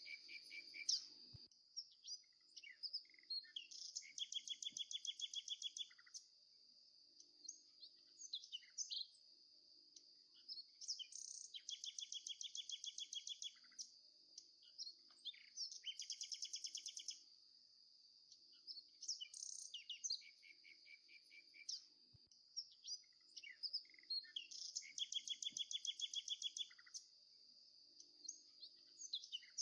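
Birds chirping, with a rapid trill of about two seconds every several seconds, over a steady high-pitched drone like crickets.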